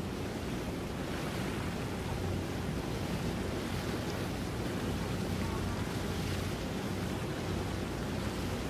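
Steady wind buffeting the microphone over water noise on open water, with a faint low engine hum underneath.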